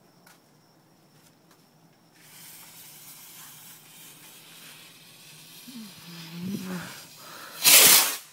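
A lit firework fuse hissing and sputtering for several seconds, then a short, loud burst near the end as the firework goes off.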